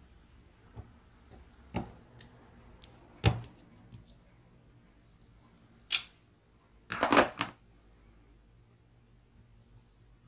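Several separate sharp metal clicks and knocks, with a quick cluster of them about seven seconds in, from circlip pliers working a retaining ring off a cordless drill's keyless chuck and from the chuck parts being handled and set down.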